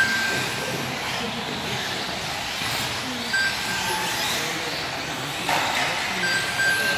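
Electric 1/10 off-road RC buggies racing on an indoor carpet track, their motors whining up and down in pitch as they accelerate and brake, over a steady hiss of tyres and hall echo. Short high beeps sound several times, and a brief louder rattle comes about five and a half seconds in.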